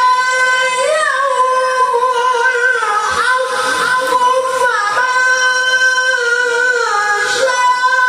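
A Quran reciter chanting in long, high-pitched held notes with melismatic ornaments, one unbroken phrase.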